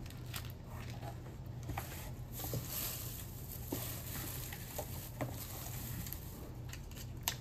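Light handling noises: scattered small clicks and soft rustling, as of a plastic bag and small items being set down on a table, over a steady low hum.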